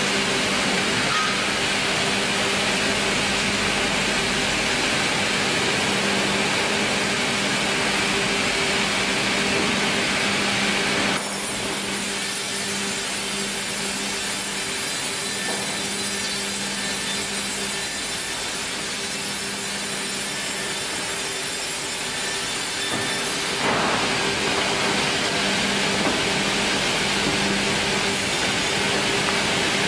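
Vertical band-saw headrig and sawmill conveyors running, a steady machine hum with the noise of the saw working wood. The sound shifts abruptly twice, about 11 and 24 seconds in.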